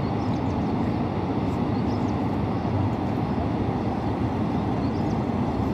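Water released through Bhakra Dam's open flood gates rushing down the concrete spillway, a steady, unbroken noise.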